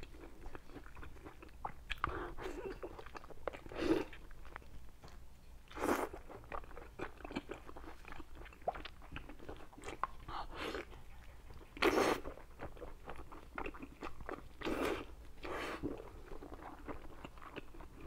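A person biting and chewing braised pig trotter close to the microphone: a steady run of small mouth clicks, with a few louder bites spread through.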